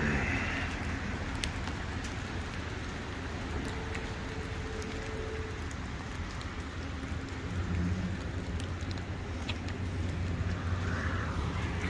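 A vehicle engine idling with a steady low hum, over a haze of outdoor noise, with scattered sharp clicks.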